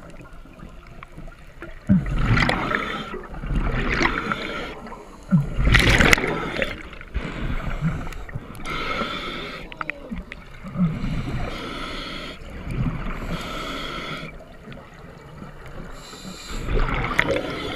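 Swimmer breathing hard through a snorkel, a breath every second or two, with water gurgling and sloshing around the snorkel.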